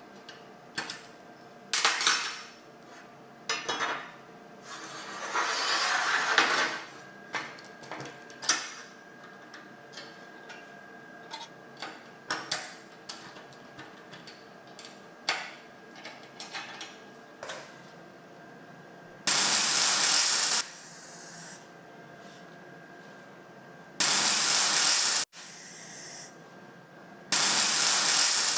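Light metal clinks and knocks from handling tools and parts on a workshop bench, then three bursts of loud hissing spray, each lasting about a second and a half, starting about 19, 24 and 27 seconds in.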